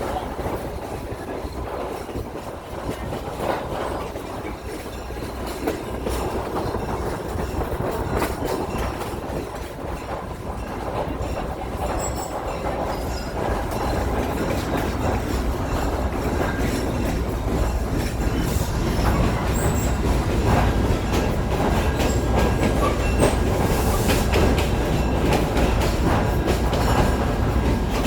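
Heritage excursion train's passenger cars rolling along the track: a steady rumble with the wheels clicking over rail joints and a little wheel squeal, growing louder about halfway through.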